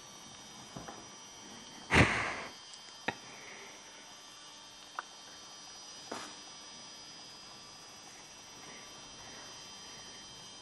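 Weimaraner puppy shifting on a cushion and mouthing a plush toy: a sudden rustling thump about two seconds in, then a few sharp clicks and a soft knock, over a faint steady electrical hum.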